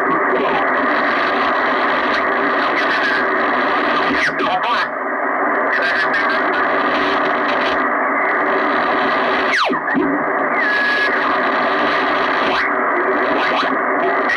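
Receiver audio from a Kenwood TS-440S HF transceiver being tuned across the band through a BHI NEDSP1061 DSP filter: steady band noise held to a narrow voice-width passband. Thin whistles slide through it as the dial turns, one about four seconds in and one falling sharply in pitch just before ten seconds.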